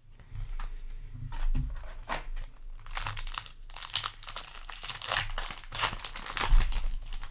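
Foil wrapper of a Yu-Gi-Oh! booster pack crinkling as it is handled and torn open by hand, a dense run of irregular crackles.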